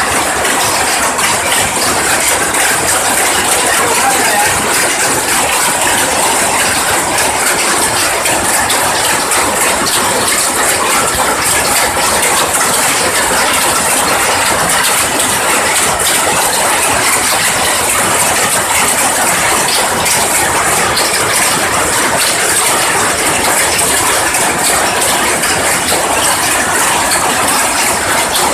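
Several power looms running together: a loud, steady, dense mechanical clatter.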